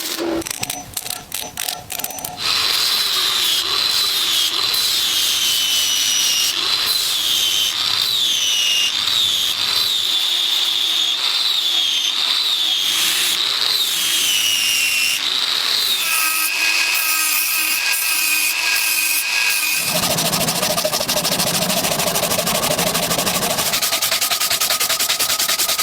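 A few light clicks, then a small high-speed power tool whining and working metal, its pitch dipping again and again as it is pressed into the work. It then settles to a steadier, lower whine and changes to a lower-pitched running sound near the end.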